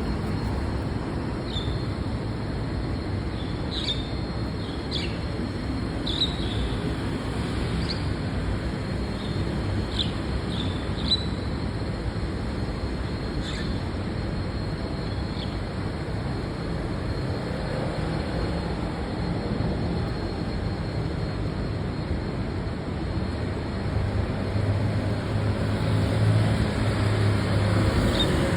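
A bird giving short, high chirps, scattered mostly through the first half, over a steady low rumble of road traffic. A low hum grows louder near the end as traffic noise rises.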